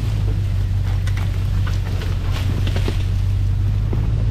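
Toyota LandCruiser 100 series driving: a steady low drone of engine and tyres, with scattered short clicks and knocks over it.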